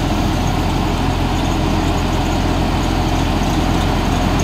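Tracked rice combine harvester's diesel engine idling steadily with a low, even drone.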